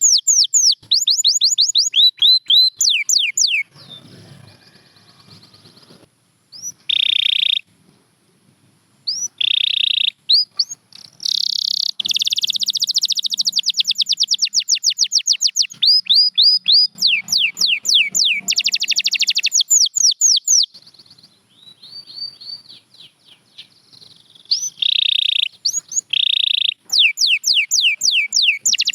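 Domestic canary singing: fast trills of repeated falling whistled notes, broken by short buzzy rolls and a couple of brief pauses.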